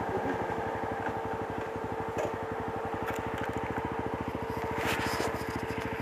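Yezdi Roadster's single-cylinder engine running at low, steady revs as the motorcycle slows nearly to a stop, with a rapid, even pulse. Brief scraping rustles near the end.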